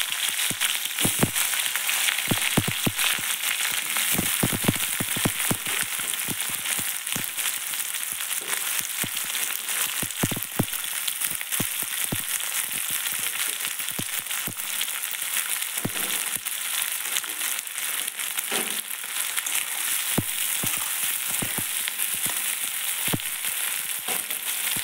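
Chopped red onions sizzling in hot oil in a wok: a steady high hiss with many sharp crackles and pops, densest in the first few seconds.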